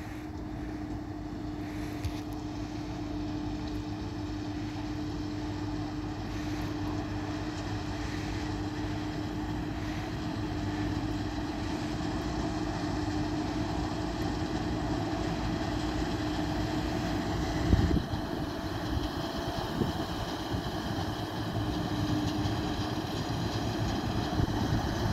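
New Holland TC5050 combine harvester running with a steady engine note, getting slowly louder. There is a short loud knock about 18 seconds in.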